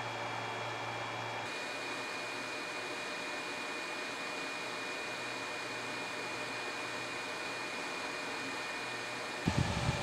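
The twin fans of a homemade 12 V PTC ceramic space heater running: a steady whir of moving air with a thin high tone. Near the end, instrumental music with a beat comes in over it.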